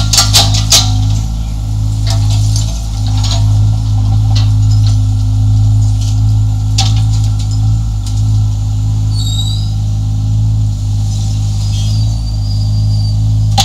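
1.7-tonne Yanmar ViO mini excavator's diesel engine running steadily, with sharp clinks and clatter of broken concrete as the bucket scrapes and shifts the rubble, a burst of them right at the start.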